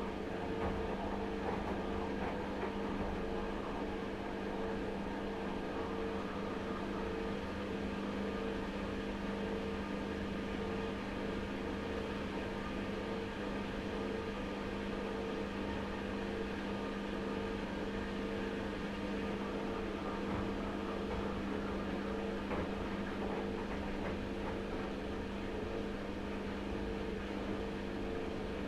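Front-loading washing machine running with a steady motor hum that holds two constant tones, unchanging throughout.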